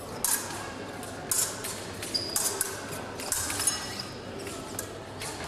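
Épée blades meeting in a fencing bout: a series of sharp metallic clicks and clinks, some ringing briefly.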